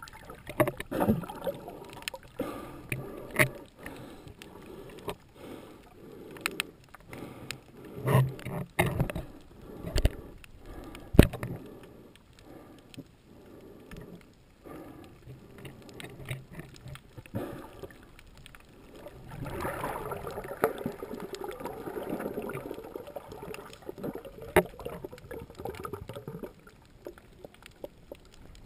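Muffled underwater sound picked up by a camera in its housing while scuba diving: scattered knocks and clicks, and a longer stretch of exhaled regulator bubbles in the last third.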